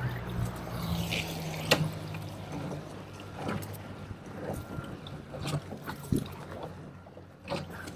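Boat engine running at low speed, a steady low hum that fades over the first few seconds, with scattered knocks and clicks on top.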